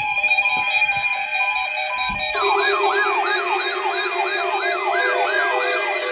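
Several weather alert receivers sounding their alarms together for a weekly test alert: steady tones and on-off beeping, joined about two seconds in by a fast siren-like warble that repeats about three times a second.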